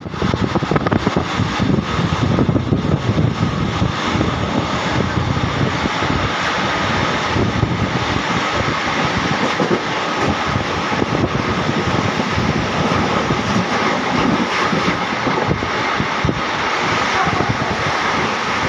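Express passenger train running at speed, heard from an open coach doorway: a steady loud rumble of wheels on the rails with rapid clattering and rushing air.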